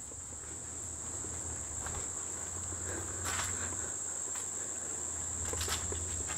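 Steady, high-pitched chorus of insects in the surrounding woods, with a couple of faint taps.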